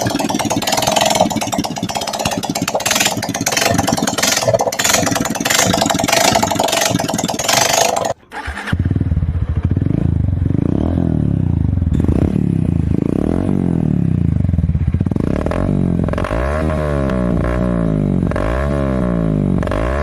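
Two small motorcycles with modified aftermarket exhausts in turn. The first is held at high revs with a loud, rough, rapid pulsing, and cuts off abruptly about eight seconds in. The second is revved up and down, then blipped in quick repeated revs about once a second near the end.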